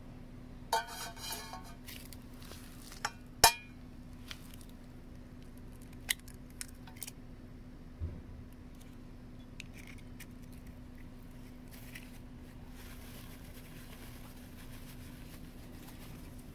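A stainless steel saucepan being handled, its metal clattering and ringing briefly, then sharp clicks and taps as an egg is cracked against it and the shell pulled apart, the loudest click about three and a half seconds in. A steady low hum runs underneath.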